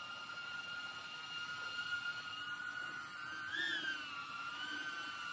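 3D-printed 3-inch 4S cinewhoop quadcopter, its EMAX ECO II 2004 3000KV brushless motors and ducted props whining steadily as it hovers under INAV altitude hold. The whine rises briefly in pitch about two-thirds of the way through, then settles back with a smaller waver.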